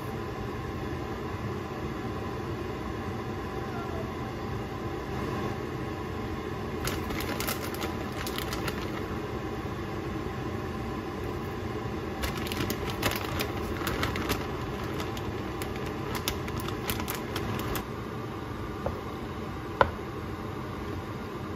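Wooden spoon scraping and tapping against a pan while stirring macaroni and ham, in clusters through the middle, with one sharp knock near the end, over a steady low hum.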